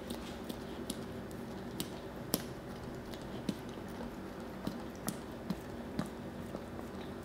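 Siberian husky licking peanut butter off its nose and lips: irregular wet smacks and clicks of tongue and jaws.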